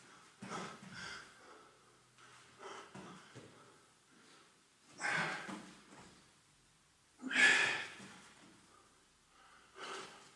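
A man breathing hard under exertion, with forceful puffing exhalations every two to three seconds in time with his squat repetitions. The loudest breath comes about two-thirds of the way through.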